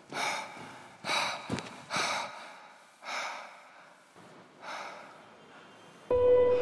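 A person breathing hard, breaths about a second apart that slow and fade. A steady musical tone comes in near the end.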